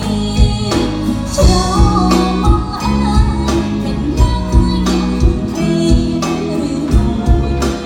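A woman singing a Khmer song into a microphone over amplified musical accompaniment with a steady beat.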